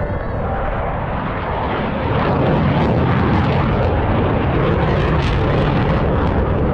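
Jet engine noise from Dassault Mirage 2000D fighters flying a display pass. It grows louder about two seconds in and then holds steady.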